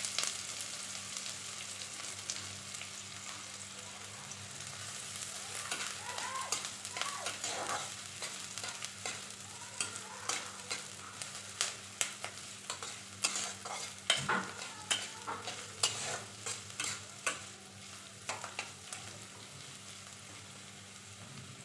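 Chopped onions sizzling in hot mustard oil in a pan while a metal spatula stirs them, its strokes clicking and scraping against the pan; the sizzle is strongest at the start and the spatula strikes come thick and fast from about six seconds in.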